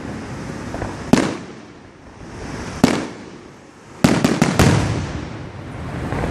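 Fireworks going off: a single sharp bang about a second in, another just before three seconds, then a rapid volley of about five bangs around four seconds in, each trailing off in an echoing rumble.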